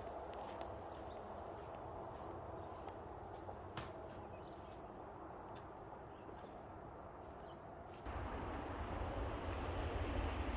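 Insects chirping in an even rhythm, about three high chirps a second, over a thin steady high whine. About eight seconds in, the chirping drops away and a louder, low rumbling noise takes over.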